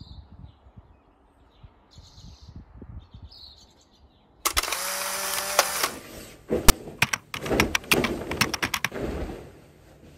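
Faint bird chirps for the first few seconds. From about four seconds in, loud rustling and flapping of bed linen being shaken out over a bed, with many sharp snaps of the fabric.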